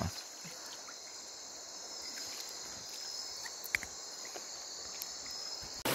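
Night insects trilling in a steady, high-pitched chorus, with a faint click a little past halfway. The chorus cuts off just before the end.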